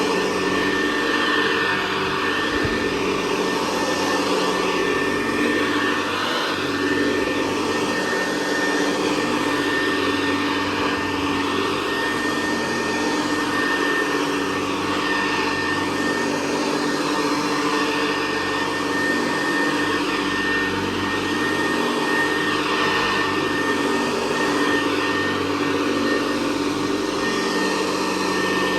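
Hoover Convertible Model 68 upright vacuum (1961, direct-air, triple-action agitator) running steadily over carpet: an even motor-fan hum with a thin high whine over it.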